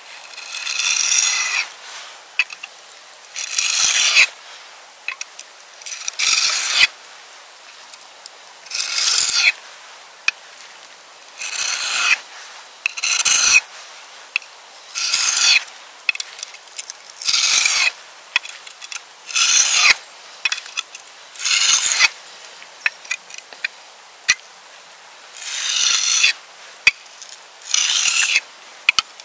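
Slow, evenly paced rasping strokes, about one every two seconds, each under a second long.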